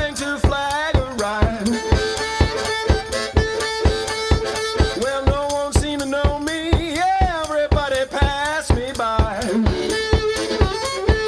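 Background music with a steady drum beat and a wavering melody over it.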